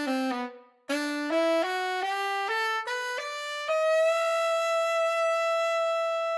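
Infinite Woodwinds virtual tenor saxophone playing raw, with no EQ and only reverb. A phrase ends, and after a short breath a quick rising run of about nine notes leads into one long held high note.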